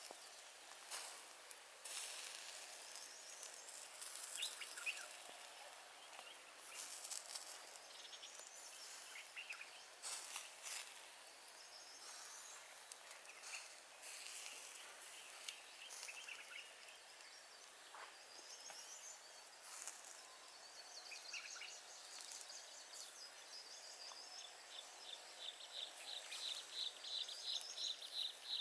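Forest ambience with birds calling in short repeated chirps and scattered sharp clicks. Near the end a fast, evenly pulsing trill sets in and grows louder.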